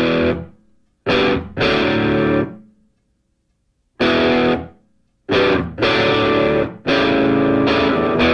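Background music: distorted electric guitar playing chords in short, loud stabs, with brief silent gaps between them.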